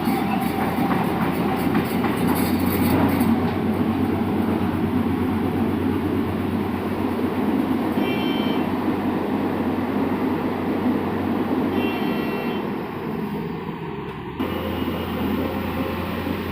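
Tata Hitachi excavator's diesel engine running steadily at work, with metallic clatter over the first few seconds. The sound changes abruptly near the end.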